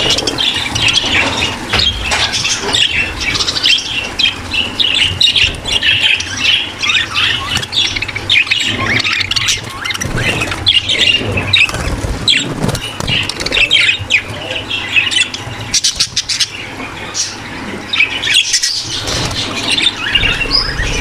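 A breeding-room flock of budgerigars chattering nonstop: many overlapping chirps, warbles and squawks with no break.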